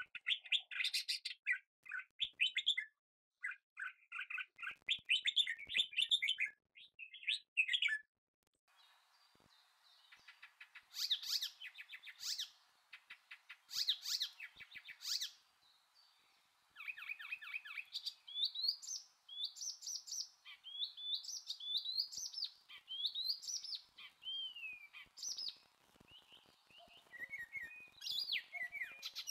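Wild birds chirping and singing: quick twittering phrases, then from about nine seconds in repeated short rising whistled notes over a faint steady hiss.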